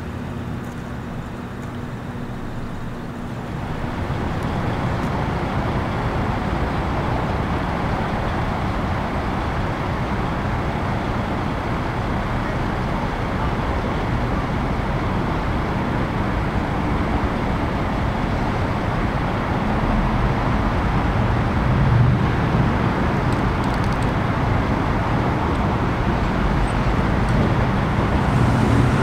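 A quieter low, steady hum, then about four seconds in a louder steady wash of road traffic noise takes over, with a low engine drone growing stronger in the second half.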